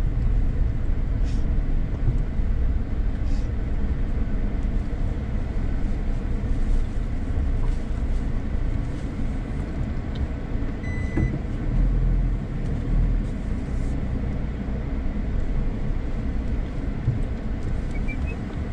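Car driving slowly along a street: a steady low rumble of engine and tyres on the road, swelling and easing a little as it goes.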